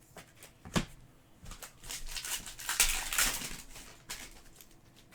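Trading card pack wrapper crinkling as it is torn open. There is a sharp click about a second in and a smaller one near the end.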